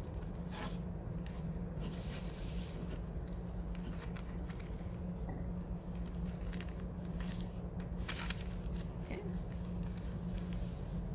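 Newspaper being folded and creased by hand on a table: short crisp paper rustles and swipes, several in the first few seconds and a few more around seven to eight seconds in, over a steady low hum.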